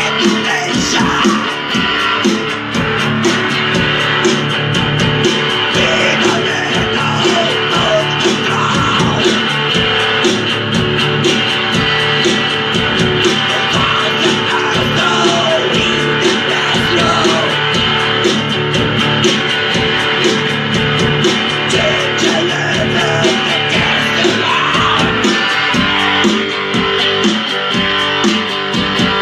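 Guitar music with a steady rhythm.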